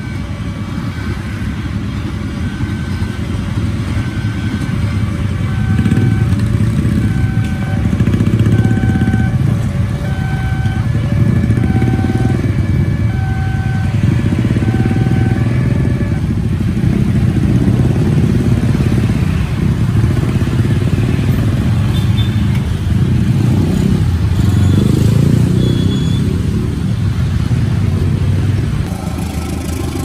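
A railway level-crossing warning alarm beeps in a regular pattern about once a second over the low running of a crowd of idling motorcycle engines. About halfway through the alarm stops, and the motorcycles rev as they pull away across the tracks.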